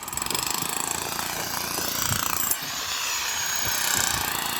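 A machine running steadily, with a fast rattle for about the first second and a half.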